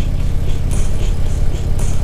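Harley-Davidson V-twin motorcycle engine running steadily at cruising speed, heard from on the bike.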